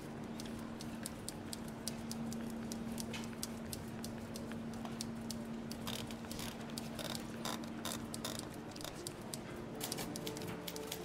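Irregular light clicks and ticks, sparse at first and coming thicker after a few seconds, over a steady low hum. A few held musical notes come in about a second before the end.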